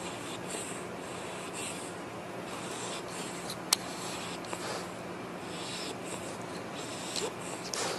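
A sleeping pet snoring: soft, breathy snores roughly once a second. A single sharp click partway through.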